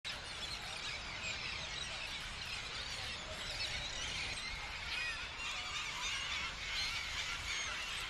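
A large flock of gulls calling all at once: a dense chorus of overlapping high squealing cries, over a steady low rumble.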